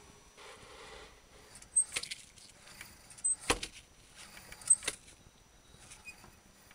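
A homemade wooden string-and-pulley mechanism being worked: a soft rustle, then three clusters of sharp clicks and knocks about a second and a half apart, the loudest near the middle.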